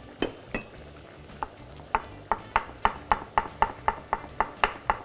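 A kitchen utensil knocking sharply against a hard surface while cooking. There are a few separate knocks at first, then a steady run of about three to four a second from about two seconds in, each with a short ring.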